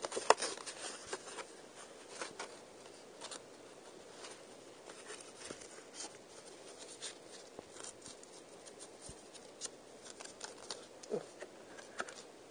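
Faint, scattered clicks and rustles of a plastic CD case and its paper inserts being handled and turned over.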